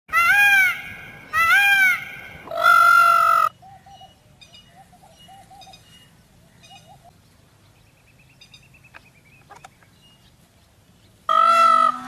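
Indian peafowl (peacock) calling: three loud wailing calls in the first few seconds. Then come fainter short calls and a brief high trill, and loud calling starts again near the end.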